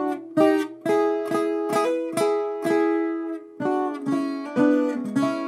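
Viola caipira, the ten-string Brazilian folk guitar, playing a slow picked melody (a ponteado) of about a dozen plucked notes, mostly sounded in pairs. There is a short pause partway through, and the last note is left ringing.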